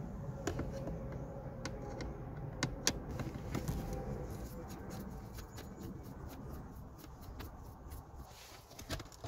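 Hand screwdriver taking a screw out of a plastic console tray: a few light clicks and scrapes of metal on plastic, over a low steady rumble.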